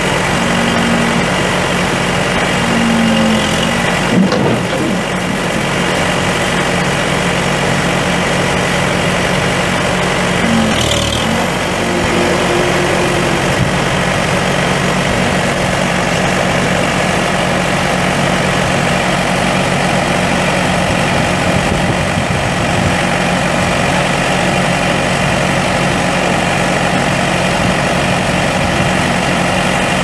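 Case 580L backhoe's four-cylinder diesel engine idling steadily, with a brief knock about four seconds in.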